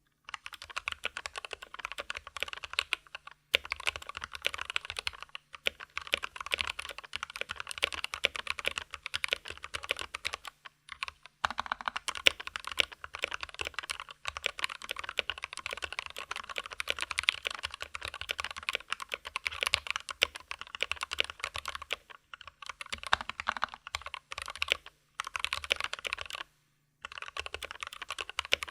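Fast continuous typing on a mechanical keyboard with lubed and filmed Gateron Yellow linear switches and PBT keycaps, neoprene damping inside its plastic case, giving a dense run of soft, muted keystrokes. The typing breaks off in short pauses every few seconds.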